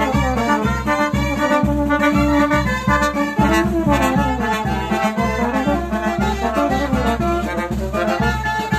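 A live band of trombones, trumpets, clarinets and saxophone, with a bass drum keeping a steady beat, playing a lively dance tune.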